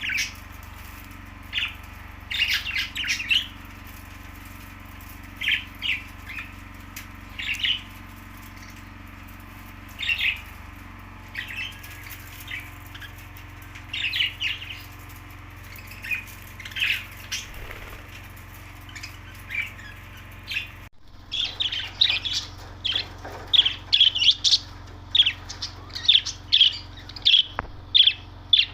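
Budgerigars chirping and squawking in short scattered bursts, the calling growing denser and busier after a brief break about three-quarters of the way in, over a steady low hum.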